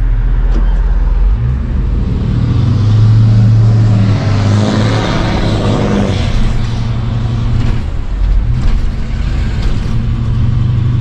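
A 454 big-block V8 (7.4 litres) in a 1989 Winnebago motorhome on a Chevy P30 chassis, heard from inside the cab while driving. It pulls away about a second and a half in and gets louder for a few seconds as it accelerates, then settles to steady running.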